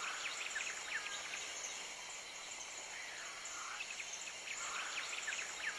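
Quiet outdoor nature ambience from a cartoon soundtrack: birds chirping in short scattered calls over a steady high hiss.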